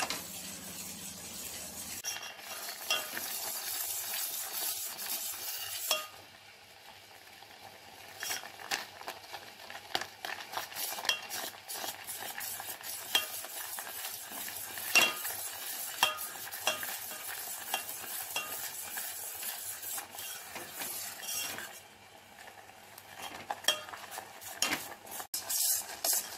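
Ladle stirring and scraping around a stainless-steel pan of curdled milk cooking down, with frequent light clinks against the metal, over a sizzle. The sizzle eases about six seconds in and returns near the end. Continuous stirring keeps the thickening milk solids from sticking and burning.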